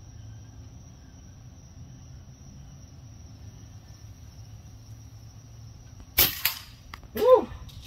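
An airgun fires once about six seconds in, a sharp crack followed closely by a second, smaller snap. About a second later comes a short pitched sound that rises and falls, like a brief vocal exclamation, over a faint steady high tone.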